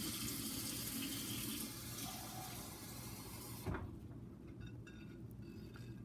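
Hot water being poured into a paper cup of instant ramen: a steady splashing stream that stops sharply a little past halfway, with a single knock.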